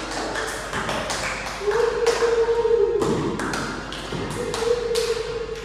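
Irregular tapping and knocking, many sharp taps in no steady rhythm, with a held steady high tone sounding twice, for over a second each time.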